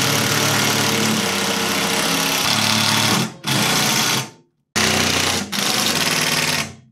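Makita 18 V cordless impact driver hammering screws home. One long run stops about three seconds in, a short burst follows, then after a brief pause a second run of about two seconds.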